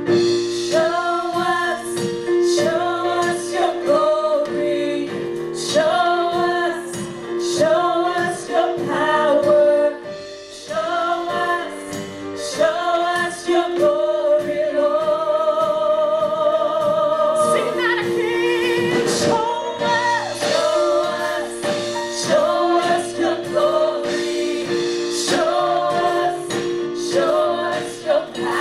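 Worship song sung by a group of voices over a steadily held accompanying note, phrase after phrase with a short break about ten seconds in.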